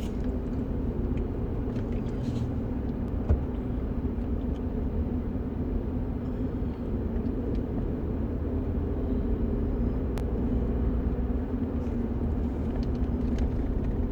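Steady low vehicle rumble, with a couple of faint clicks.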